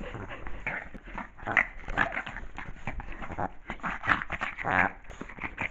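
Small fluffy white dog making a run of short sounds close to the microphone, with a longer pitched one near the end.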